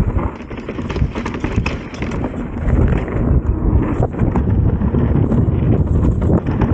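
Mountain bike descending a rough trail: tyres rumbling over rocks, with frequent knocks and rattles from the bike, and wind buffeting the microphone.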